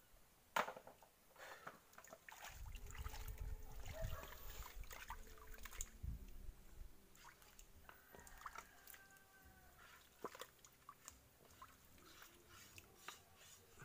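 Hands digging and groping through wet mud and shallow muddy water, with sloshing and scattered small clicks and knocks; a low rumble comes in a couple of seconds in and fades out around seven seconds.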